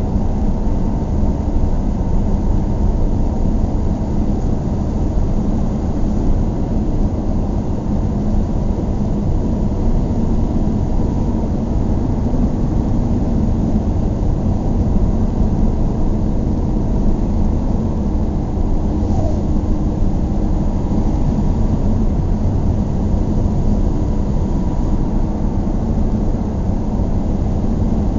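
Steady road and engine noise of a car driving, dominated by a low rumble.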